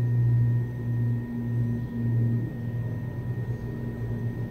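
A steady low hum that swells and dips a little in level, with two faint, steady high tones above it.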